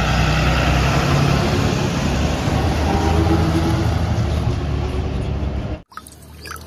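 A full-size school bus driving past with its engine running steadily. The sound cuts off abruptly about six seconds in.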